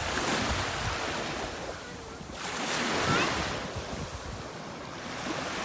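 Sea waves washing in and swelling twice, with wind buffeting the microphone.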